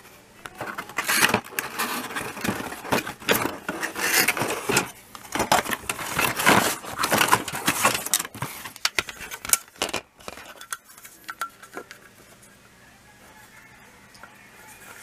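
Plarail plastic toy train rails clattering and scraping against each other and the cardboard box as they are unpacked by hand. The handling is busy for most of the first ten seconds, then quieter.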